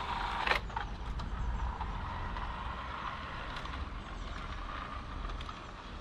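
Electric motor and gearing of a G-scale garden-railway locomotive whirring as it slows toward a stop at the station, under automatic speed control after passing the reed-switch sensor. A sharp click comes about half a second in.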